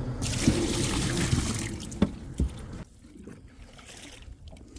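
Water pouring and splashing as a fish bucket is filled by hand, with a couple of light knocks about two seconds in; the pouring dies down about three seconds in.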